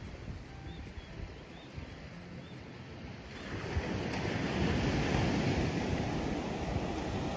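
Sea waves washing onto a sandy beach, a steady rushing surf that swells louder about three seconds in.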